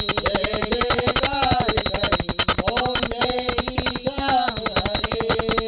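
Puja hand bell rung rapidly and without a break during aarti, its strokes coming quick and even, with a voice singing a devotional melody over it.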